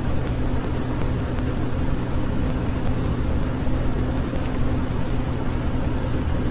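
Steady low hum with a constant hiss, unchanging throughout, with no bird calls.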